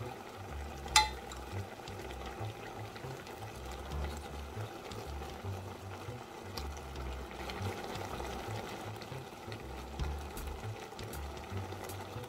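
Water at a rolling boil in a pot with mountain greens blanching in it, the stems turned with chopsticks: a low, uneven bubbling rumble. One sharp click about a second in.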